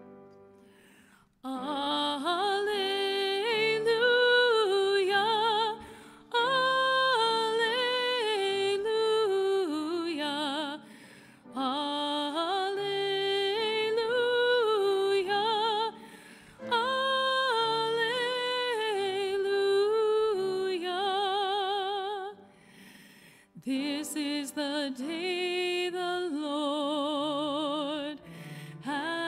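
A solo cantor singing a sacred chant in phrases of a few seconds with strong vibrato, over a keyboard accompaniment, with short breaks between phrases.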